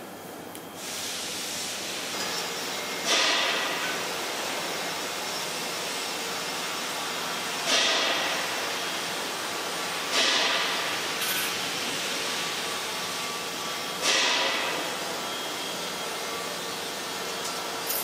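Metalwork on a sheet-steel cone: a steady hiss with four sharp hits, each fading over about a second.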